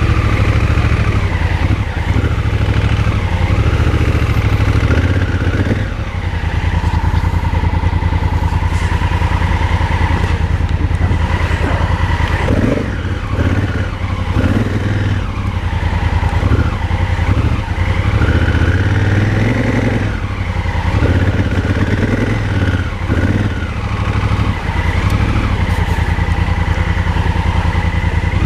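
Motorcycle engine running at low road speed, its level rising and dipping a little with changes of throttle.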